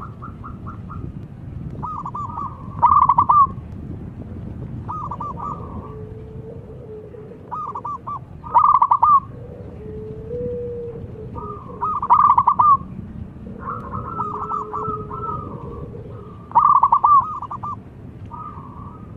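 Zebra doves cooing: short bursts of rapid staccato notes repeat every few seconds, with a fainter, lower drawn-out coo between them.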